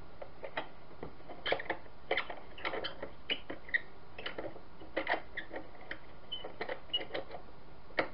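Irregular clicks and light knocks from the plastic case of a road barricade lamp being handled and fitted together.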